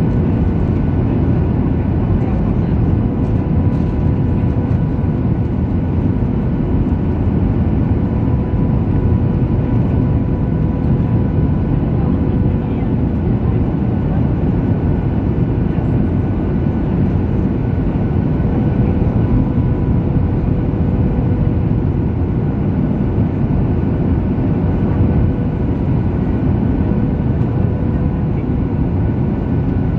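Steady cabin roar of a Ryanair Boeing 737 jet airliner in flight on approach with flaps down, heard from a seat over the wing: engine noise and rushing air, with a faint steady hum on top.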